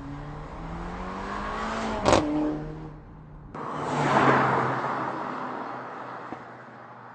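Mercedes-AMG CLA 45 Shooting Brake's turbocharged four-cylinder engine accelerating past: the engine note climbs, then drops in pitch as the car passes close by about two seconds in. After a sudden break, a second pass-by follows, mostly a rush of tyre and wind noise that swells and fades.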